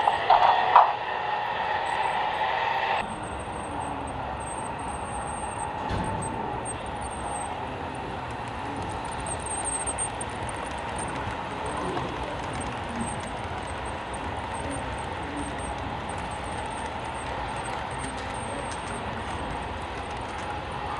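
HO-scale model train cars rolling along the track, a steady rolling sound of small wheels on rail, louder for the first three seconds as freight cars pass close by, then quieter and even as passenger cars run further off.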